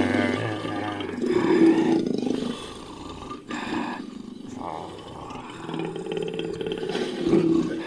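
Big-cat roars and growls in a series of calls, loudest near the start, again about a second in and near the end, with quieter growling between.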